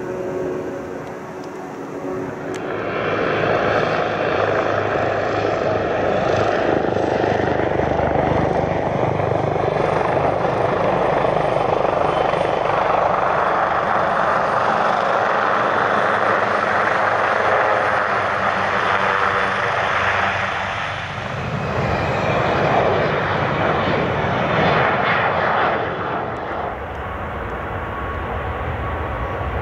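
A helicopter flying low and close. Its turbine and rotor make a loud, steady rush that starts abruptly a couple of seconds in and carries on for about twenty seconds. Near the end it gives way to the quieter, building engine noise of an Airbus A380 on its takeoff roll.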